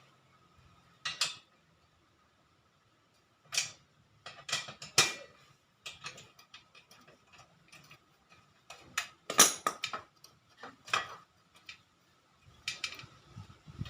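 Irregular metallic clinks and knocks in several short clusters, like hand tools and small metal parts being picked up and set down.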